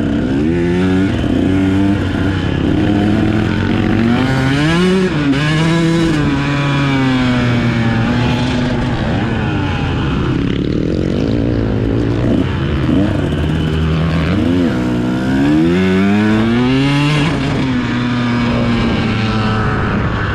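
Dirt bike engine heard from on board, revving up and down over and over as the rider works the throttle and gears around a motocross track. The pitch climbs and drops several times, easing off briefly about halfway before pulling hard again.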